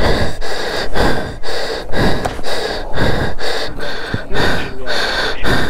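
Loud, repeated gasping breaths from a person panting hard, out of breath from the strain of heaving a fallen motorcycle upright.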